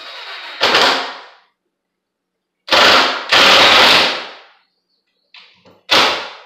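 Cordless power driver driving screws into plywood in short bursts: a softer run at the start, then loud bursts about a second in, from about three to four and a half seconds in, and again near the end.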